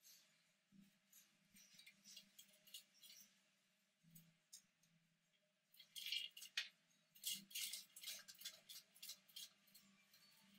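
Faint scattered scratching and clicking of degus' claws as they move about on shredded paper bedding and the clear plastic running wheel, busier and louder from about six seconds in.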